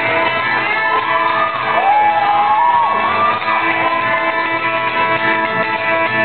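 Band playing a driving old-time fiddle tune on fiddle and guitar. A wavering, sliding high line rides over it for the first three seconds or so.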